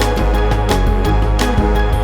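Background music: electronic instrumental with a steady beat of about two strokes a second over a sustained bass and chords.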